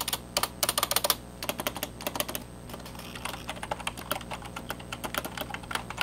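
Keys clacking on an old rubber-dome computer keyboard: a few louder presses near the start, on the shift key, whose stabilizer is not yet greased and rattles. Then a steady run of typing follows, the spacebar's stabilizer freshly greased.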